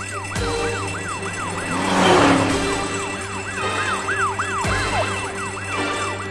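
Cartoon fire truck siren in a fast yelp, rising and falling about four times a second, with a whoosh swelling up about two seconds in as the truck drives past.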